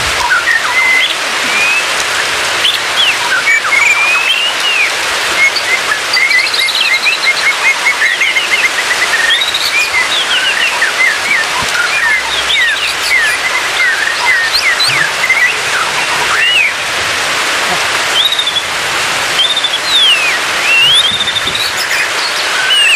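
White-rumped shama singing varied whistled phrases, rising and falling glides with a quick run of short repeated notes about seven seconds in, over a steady hiss.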